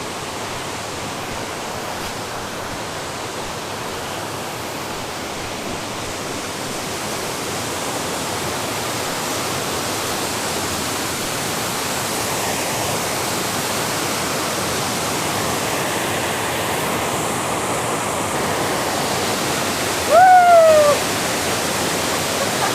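Waterfall rushing steadily over large boulders. Near the end, a short call sliding down in pitch cuts through once.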